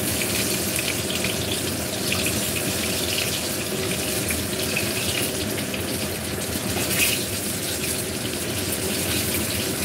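Eggplant slices topped with minced fish shallow-frying in oil in a pan, sizzling steadily with fine crackles.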